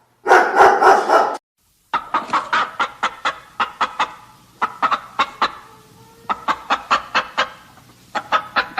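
A dog barking for about a second, then after a short break a hen clucking in quick runs of short clucks, about five a second, with pauses between the runs.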